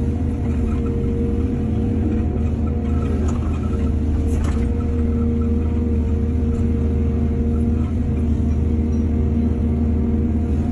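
Heavy diesel engine of an excavator running steadily under load, with a held low drone and one brief metallic clank about four seconds in.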